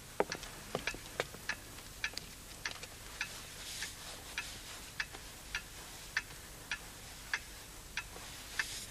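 A clock ticking steadily, a little under two ticks a second.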